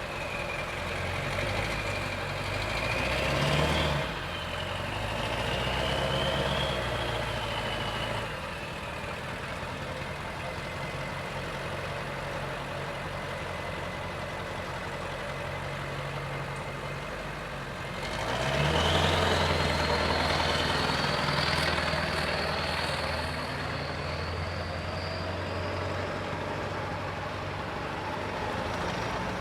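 Flatbed tow truck's diesel engine running, sped up twice with a rising whine, first at the start and again about eighteen seconds in, settling back to steady running in between, as it works to haul a vehicle onto its bed.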